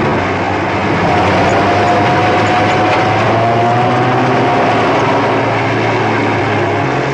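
A Cessna Skylane single-engine propeller plane running at high power across a grass field, with a car engine alongside: a loud, steady drone with a faint whine that rises slightly.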